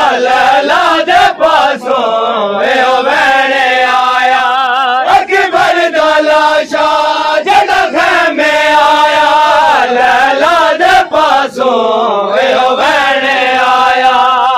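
A group of men chanting a noha lament in unison, drawn-out lines with a wavering pitch that break off between phrases.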